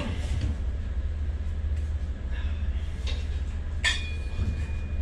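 Lever tube bender working a small metal tube line, with light clicks and one sharp metallic clink that rings briefly about four seconds in, over a steady low hum.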